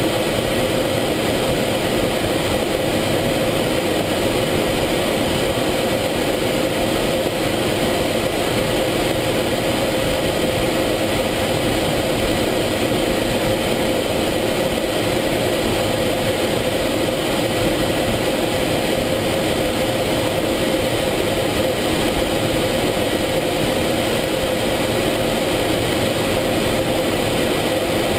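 F-16 jet engine and airflow heard from inside the cockpit in flight: a continuous, unchanging noise with a steady mid-pitched hum.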